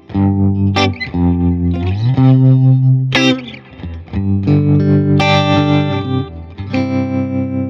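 Electric Telecaster played through a Fender Tone Master Pro modeler's country-style preset with its tremolo effect on: a short run of chords and bent notes, ending on a chord left ringing.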